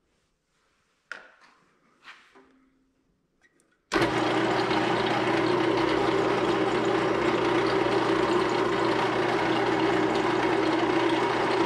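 A drill press switched on about four seconds in, its motor then running steadily at speed, set to drill straight through a steel handle tube with no pilot hole. Before it, a couple of light knocks from handling the work.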